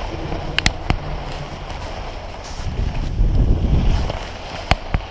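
Wind buffeting the microphone of a skier's camera while skiing downhill, over the hiss of skis sliding on packed snow, with a few sharp clicks.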